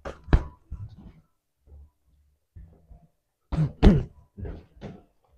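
Boxing gloves smacking against gloves as partners throw jabs and hooks and parry them. A pair of sharp smacks at the start and another pair about three and a half seconds in, with lighter taps between.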